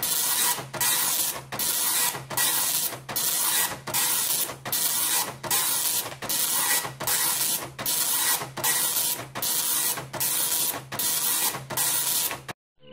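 Panasonic KX-P1180 9-pin dot matrix printer printing in draft mode during its self-demo: a buzzing rasp of the print head hammering out one line after another, about one and a half lines a second, each with a brief pause as the carriage turns and the paper feeds. It cuts off suddenly near the end.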